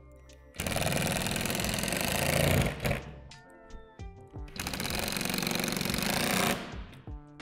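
Cordless drill/driver running in two bursts of about two seconds each, driving screws into plastic shed gable panels. Background music plays in between.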